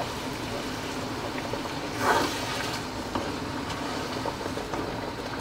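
Thick peanut sauce simmering in a wok while stirred with a wooden spoon: a steady bubbling hiss with small pops and spatters, and one louder splutter about two seconds in.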